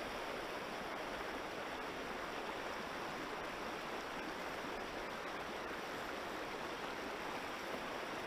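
River water rushing steadily, an even noise with no breaks or distinct splashes.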